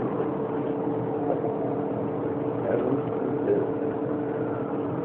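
Steady mechanical drone: a constant noisy rumble with several held tones, unchanging throughout.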